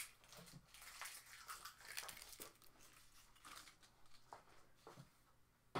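Faint, irregular rustling and crinkling of cardboard and plastic packaging being handled, with a few light knocks.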